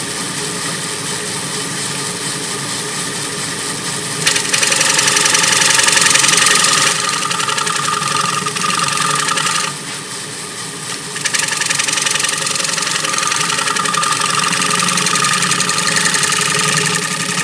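Wood lathe running steadily while a scraper cuts across the face of a 17-inch Jatoba (Brazilian cherry) cutting-board blank, smoothing the surface and taking out tool marks. The cut grows louder about four seconds in, drops away briefly near the middle as the tool eases off, then takes up again.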